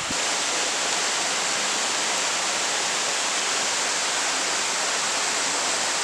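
Waterfall rushing, a steady unbroken roar of falling water.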